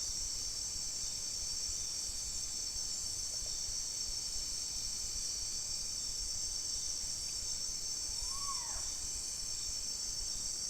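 Steady, high-pitched chorus of insects trilling without a break. About eight and a half seconds in, a single brief whistle rises and falls.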